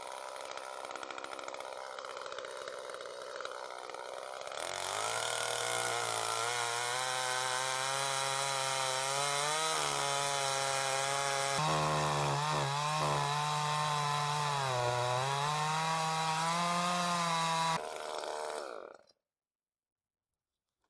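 Two-stroke Champion chainsaw running at idle, then revved up and cutting through a fallen log. Its engine pitch sags and recovers as the chain bites into the wood. It stops suddenly about 19 seconds in.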